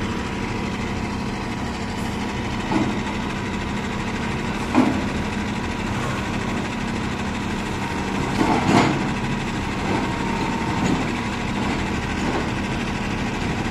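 Rotary piling rig's diesel engine running steadily at idle, with a few short knocks about three, five and nine seconds in, the last the loudest.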